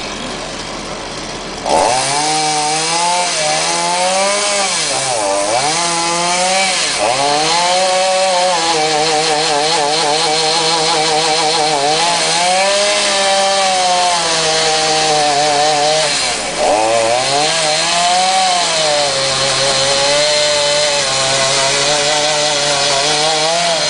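Two-stroke chainsaw cutting into a tipuana tree trunk. It comes in loud about two seconds in, and its engine note dips and recovers again and again as the chain bites into the wood.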